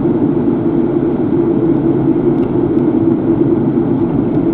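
Steady drone of a car driving on a paved road, engine and tyre noise heard from inside the cabin.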